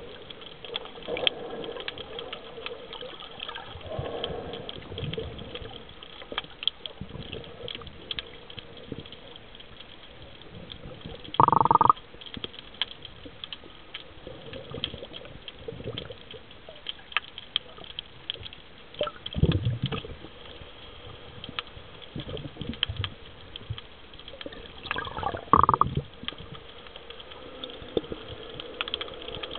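Muffled underwater sound through a camera housing: a diver's exhaled bubbles gushing in short bursts, three of them louder, over a steady faint crackle.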